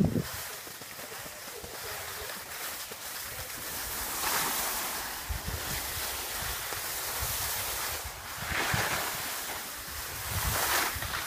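Skis scraping and hissing over icy, hard-packed snow, with wind rushing over the microphone. The hiss swells several times as the skier moves.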